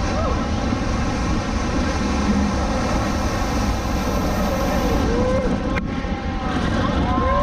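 Motorboat engine running steadily at speed, mixed with the rush of water.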